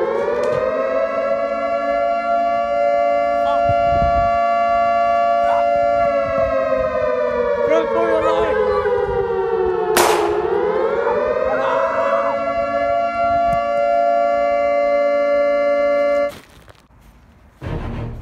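Air-raid siren wailing: its pitch rises and holds, sinks slowly, then climbs again about halfway through with a sharp click. The siren cuts off suddenly near the end.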